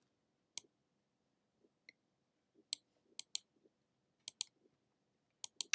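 Computer mouse clicking, about nine short clicks spread irregularly, several of them in quick pairs, as vertices are selected and edited in 3D modelling software.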